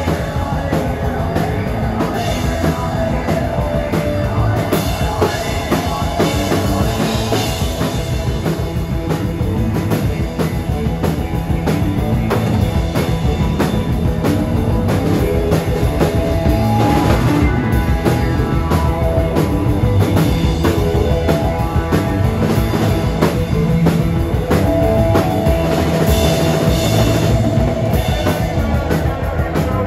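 Live psychedelic rock band playing: drum kit with cymbals, electric guitar, bass guitar and keyboards, loud and dense.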